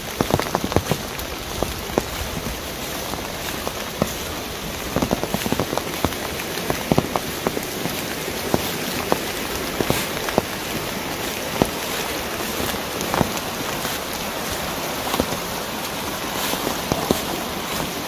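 Mountain stream cascading over rocks: a steady rush of water with frequent small splashes and drips over it.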